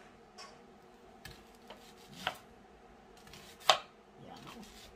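Kitchen knife cutting through an onion and striking a chopping board, four or five sharp knocks at an uneven pace, the loudest about three-quarters of the way through.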